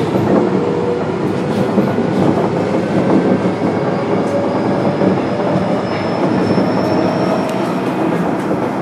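Osaka Metro 10A series train with Hitachi IGBT-VVVF traction control running between stations, heard from inside the car: steady wheel and track noise with a faint high whine slowly rising in pitch.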